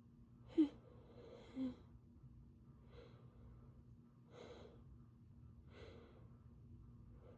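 A woman with a cold breathing: two short voiced gasps near the start, the first the loudest sound, then four soft breaths about a second and a half apart, with no sneeze.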